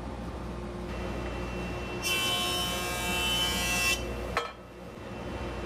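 Jointer motor running steadily, then its cutterhead cutting a wooden block pushed across it: a loud, whining cut of about two seconds starting two seconds in. A sharp knock follows just after the cut ends.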